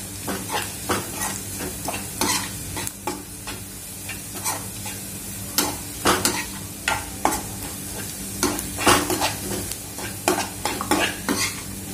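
A steel spoon stirring onions, green chillies, garlic and ground spices frying in oil in a non-stick kadhai: irregular scrapes and taps against the pan over a steady sizzle.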